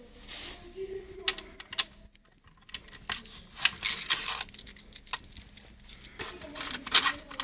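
Hand work on a motorcycle's handlebar controls: a series of small irregular clicks, taps and scrapes of tools and small parts being handled.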